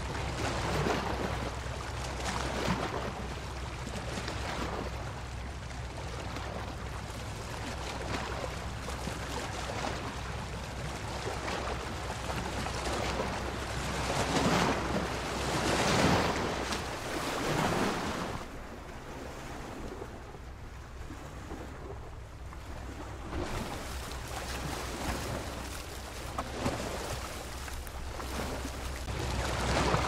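Ocean surf: waves breaking and washing up a beach, a continuous rushing noise that swells and ebbs. It is loudest a little past the middle and eases off for a few seconds after.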